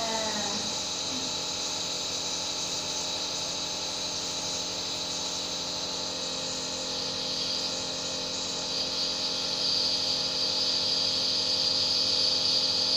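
Nebulizer running with a steady mechanical hum and hiss, the hiss growing stronger about two thirds of the way in.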